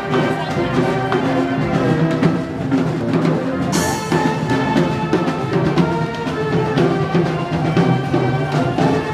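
Music with drums playing, with a brief hissing burst about four seconds in.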